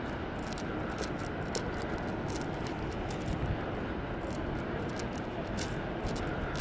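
Steady low rumble of city street ambience at night, with light irregular ticks throughout.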